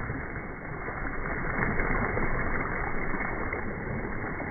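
Water splashing and sloshing in an inflatable paddling pool, churned up by a child plunging in head-first and surfacing.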